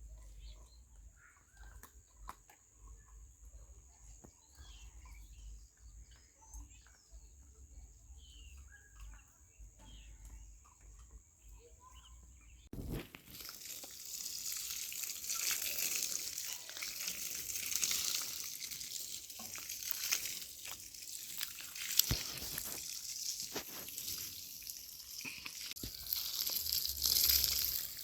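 Faint outdoor ambience with a steady thin high whine for about the first half. Then, after a sudden cut, a steady hiss of water, as from watering plants in a garden, with a few light knocks.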